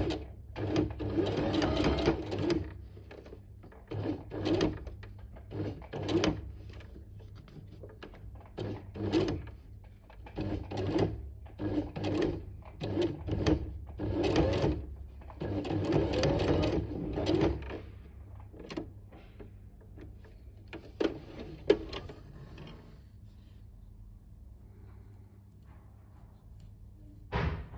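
Domestic electric sewing machine stitching felt in short stop-start runs of one to three seconds with pauses between, then falling much quieter for the last third, broken by one sharp click.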